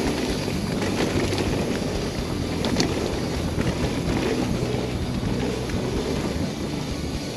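Mountain bike rolling fast down a dirt trail: steady tyre noise and rattle over the dirt, with wind rushing over the microphone.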